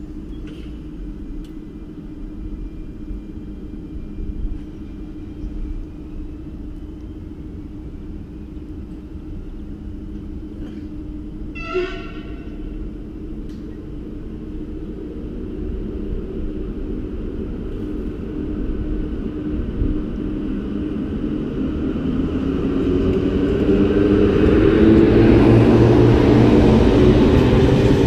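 SNCF electric locomotive with a train of Corail passenger coaches approaching and running past: a steady low rumble, a short train horn toot about twelve seconds in, then the rumble of locomotive and coaches swelling as they pass close by near the end.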